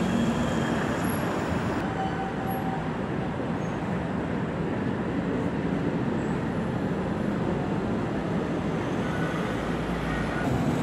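A city bus passing close, then steady street traffic noise as a tram approaches along the tracks, with a bus engine's low rumble building near the end.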